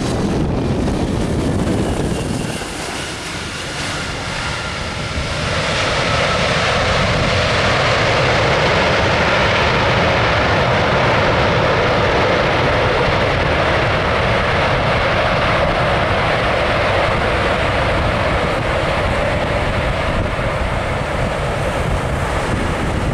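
Airbus A320-232 jet engines (IAE V2500) on the landing rollout: a faint whine, then about five seconds in the engines spool up to a loud, steady rushing noise that holds to the end, as reverse thrust is applied to slow the aircraft.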